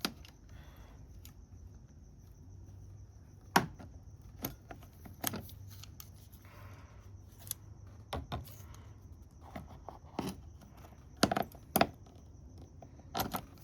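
Scattered sharp clicks and knocks of plastic clips and hard parts being handled while squeezing tabs to release them, about ten in all, the loudest about three and a half seconds in and a quick cluster near the end.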